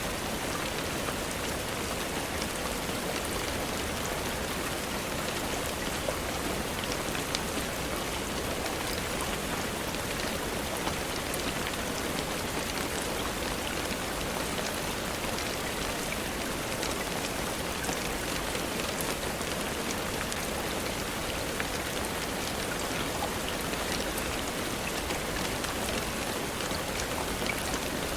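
Steady rainfall, an even hiss with scattered sharp ticks of drops.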